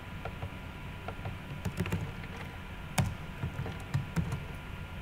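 Computer keyboard keys tapped in irregular, scattered clicks, with a sharper click about three seconds in, over a low steady hum.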